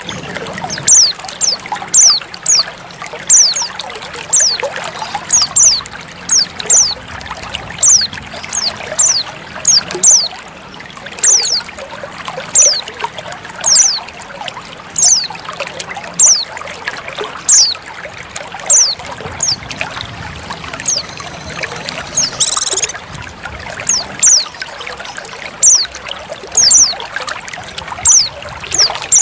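Female white-eye (pleci) calls: short, high, downslurred chirps repeated about once a second, with one brief buzzier call about 22 seconds in, over the steady sound of trickling water. This is a lure track meant to draw male white-eyes into song.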